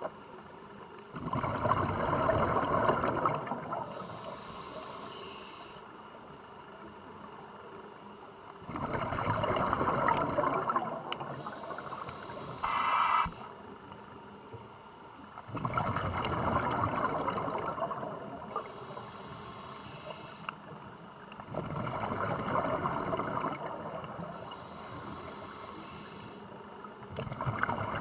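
A scuba diver breathing through a regulator underwater: slow, regular breaths, about four in all, each a loud bubbling rush followed by a hiss. Near the middle there is a short, sharper burst.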